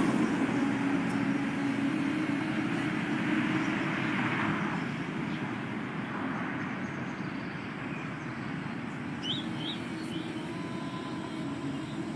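A steady low rumbling ambience that slowly fades, with a few short bird chirps near the end.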